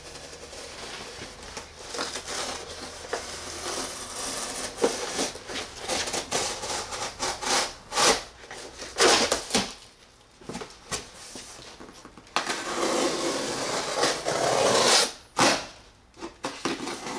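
Cardboard shipping box and plastic wrapping being cut with a knife and torn away by hand: crackling rustles and scrapes with short clicks, and one longer continuous tear a little after twelve seconds in.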